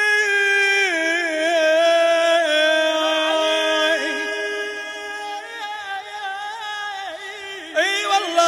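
A male voice singing a line of an Arabic Shia religious lament (latmiya) in a melismatic chant style: long held notes with ornamented turns, stepping down in pitch about a second in and falling lower about four seconds in.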